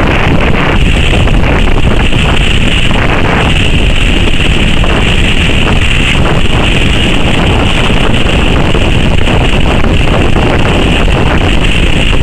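Strong wind buffeting the camera microphone: a steady, loud rumble and hiss.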